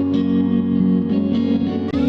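Background music: guitar with effects over a steady low bass.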